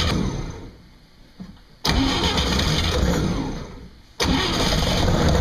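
Universal Atomic 4 four-cylinder gasoline marine engine being cranked over in repeated bursts. Each burst starts suddenly and dies away, and the engine does not catch, with water drawn up into the carburetor.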